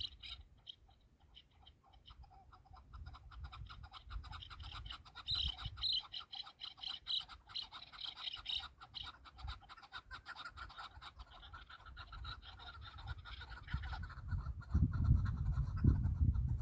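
Chukar partridge calling: a long, fast run of repeated clucking notes that builds and then fades out near the end. A low rumble comes up near the end.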